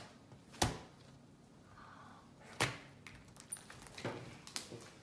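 A few sharp knocks or taps, four in all, the first two the loudest, with quiet in between.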